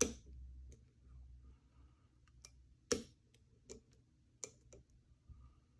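Lock pick working the pins of a pin-tumbler challenge lock under tension: a handful of light, sharp clicks at irregular intervals, the strongest about three seconds in.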